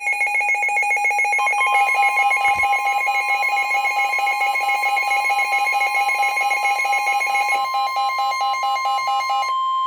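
Emergency Alert System alarm signalling a severe thunderstorm warning: a loud, rapidly pulsing electronic beep, joined about a second and a half in by a steady single-pitched tone. The pulsing stops near the end while the steady tone holds on.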